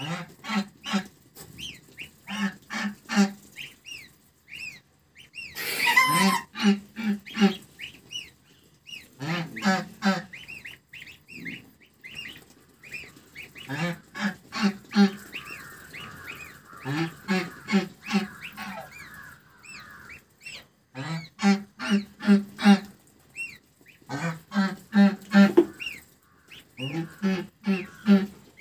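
White domestic goose calling in repeated runs of three to six short, low honks while feeding, with goslings peeping faintly.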